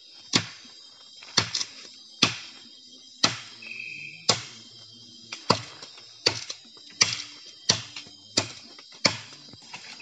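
A blade chopping into a small tree's wood to cut firewood: about fourteen sharp strikes, roughly one every two-thirds of a second, some coming in quick pairs.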